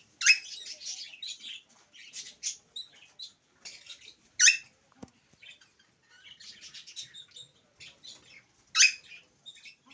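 Pet Alexandrine parakeet chirping and chattering in short high-pitched calls, with three loud sharp squawks: one right at the start, one around the middle and one near the end.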